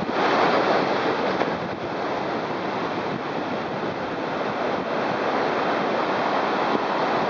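Surf breaking and washing up on a sandy beach, a steady rush of waves, with wind buffeting the microphone.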